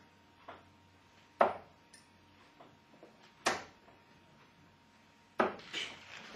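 Three steel-tip darts thudding one after another into a Winmau Blade 4 sisal bristle dartboard, about two seconds apart, the third the loudest.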